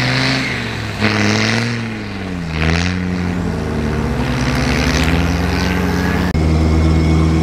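Land Rover Defender 110 engine labouring as it drives off through soft sand, with a rushing hiss. Its pitch drops and then climbs again partway through. About six seconds in, it gives way to a steadier, louder engine drone heard from inside a vehicle cabin.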